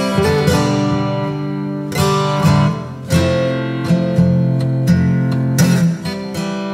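Background music led by a plucked and strummed acoustic guitar, with new notes and chords struck every second or so.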